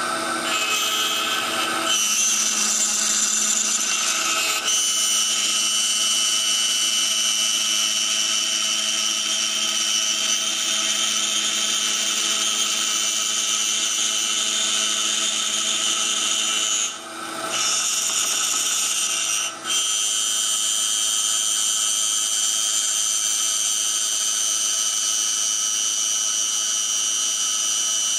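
CNC router spindle running with a steady high whine as its bit cuts a wooden ring insert. The pitch of the whine shifts about two and five seconds in, and the sound dips briefly twice later on.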